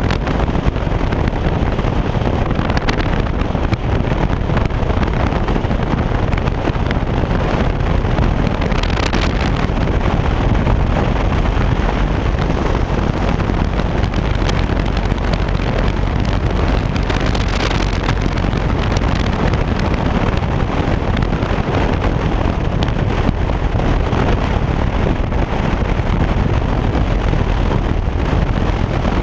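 Steady wind rush over the microphone from a Harley-Davidson touring motorcycle at cruising speed, with a low rumble of engine and road underneath.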